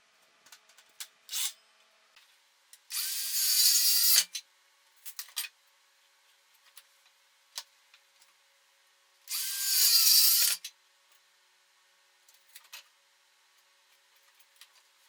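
Power drill run into wood in two short bursts of about a second each, its motor pitch dipping under load. Light clicks and knocks of handling come in between.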